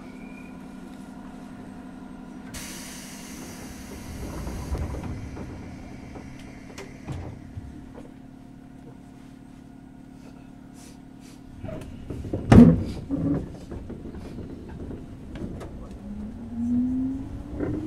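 Inside a JR 103 series 1500 electric multiple unit car: steady hum of the onboard equipment, a burst of air hiss a few seconds in, scattered clicks and a loud clunk past the middle. Near the end the traction motors' whine rises in pitch as the train starts to move.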